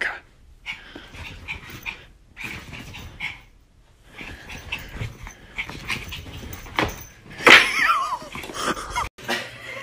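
Small white dog giving a run of short, high yaps and growls, with its loudest and longest call, a yelp that bends in pitch, about seven and a half seconds in.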